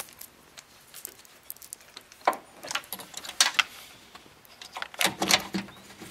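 Hands fitting a bi-xenon HID bulb and its wire leads into the headlight housing: scattered plastic clicks, scrapes and rustling, with the sharpest handling noises about two seconds in and again near the end.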